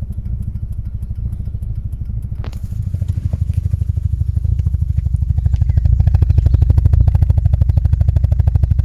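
VW T4 van engine running with a misfire, a rhythmic pulsing chug. A click comes about two and a half seconds in, and the sound grows louder from about three seconds in.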